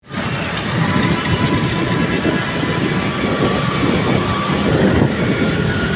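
Loud, steady rumble of road and street traffic noise, with a faint steady whine.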